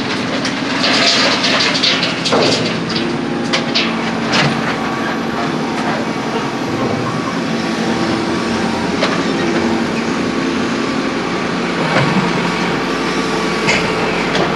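An engine running steadily, with scattered sharp knocks and clatters from work on the road.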